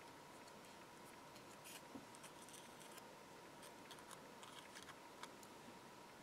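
Small pointed craft scissors snipping into a die-cut paper flower piece: faint, quick snips and clicks, scattered and more frequent in the middle.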